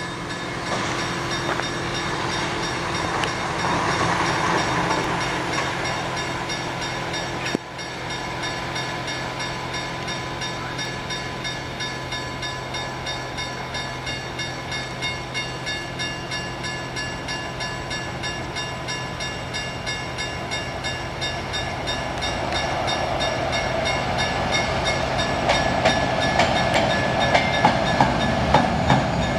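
Level crossing warning bell ringing over and over in an even rhythm, while a diesel-hauled regional train approaches and its rumble grows louder toward the end. A single sharp knock about eight seconds in.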